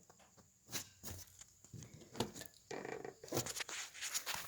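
Scattered faint knocks and clicks with a short rustle about three seconds in, typical of handling and footstep noise.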